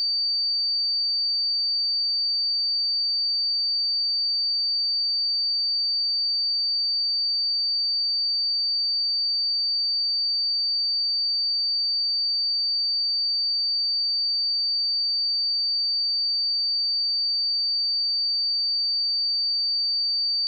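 A pure 4612 Hz sine-wave test tone, a single steady high-pitched whistle held unchanged at constant loudness.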